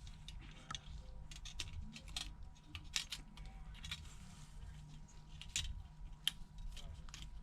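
Scattered small clicks and taps of iPhone 7 Plus parts being handled as the mid frame is fitted to the new screen, over a faint steady hum.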